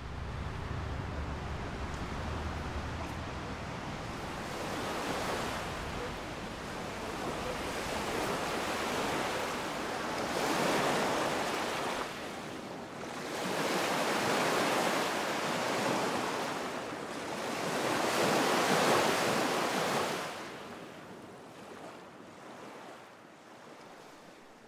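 Waves washing in, surging and falling back four or five times, then fading out over the last few seconds.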